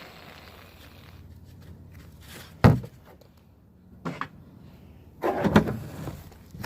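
Household handling noises: a loud, sudden knock about two and a half seconds in, a lighter knock about four seconds in, and a short burst of rustling and clatter near the end.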